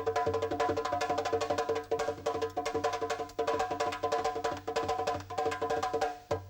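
Music of rapidly struck, tuned bamboo percussion: a dense, fast stream of ringing wooden-sounding notes on a few repeated pitches, with a short break just before the end.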